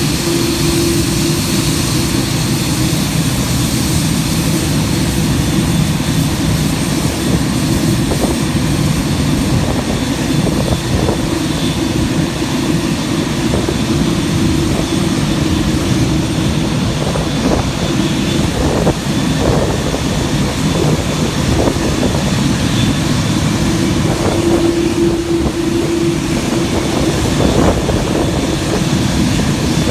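Boeing 787-9 jet aircraft, its engines and airflow making a loud, steady rumble and rush with no rise or fall; a faint steady hum sits under it near the start and again about 25 seconds in.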